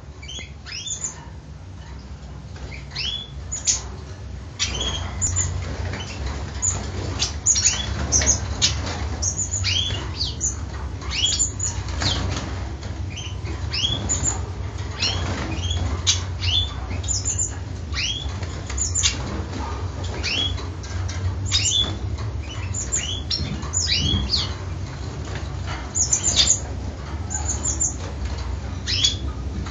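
Black-headed siskins calling: short, rising chirps, one or two a second and irregular, over a steady low hum.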